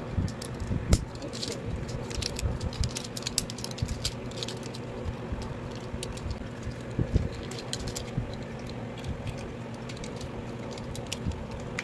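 Hard plastic parts of a transforming robot car toy clicking and rattling as they are twisted, pushed and snapped into place by hand, in many small irregular clicks.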